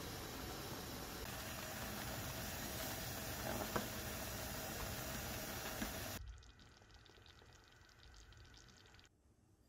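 Purple sweet potato mixture boiling and bubbling in a ceramic pot, with a single knock of a wooden spoon against the pot a little under four seconds in. About six seconds in the sound drops suddenly to a much quieter faint hiss.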